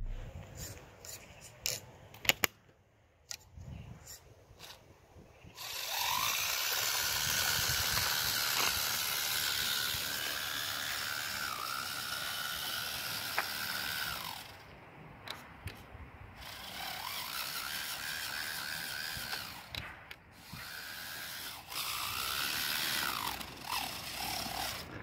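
Homemade RC 6x6 truck's electric motor and gear drive running, with a high gear whine that rises in pitch as the truck speeds up and falls as it slows, over a hiss. This comes in two runs of several seconds each. A few sharp clicks come before the first run.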